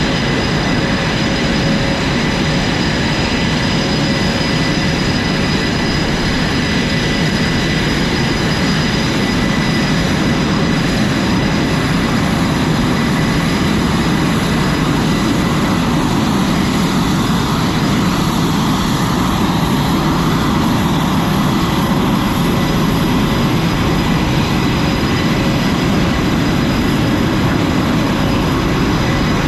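Steady, loud roar of jet aircraft engines running on a carrier flight deck, with a constant high-pitched turbine whine over a deep rumble.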